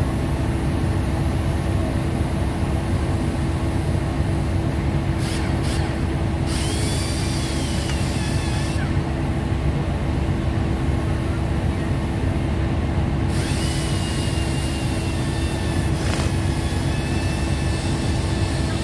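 Steady low drone of shipboard machinery with a constant hum running under it. Faint high wavering squeals come and go twice, about seven seconds in and again near fourteen seconds.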